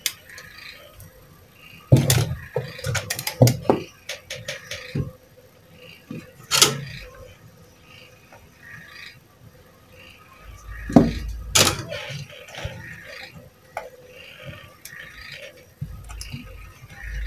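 Scattered knocks, taps and clicks of a TV circuit board being handled and soldered on a workbench, a few sharp ones louder than the rest.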